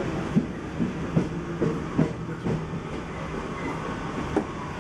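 RER C suburban train running, heard from inside the carriage: a steady low rumble with a hum, and the wheels knocking over rail joints every half second to a second.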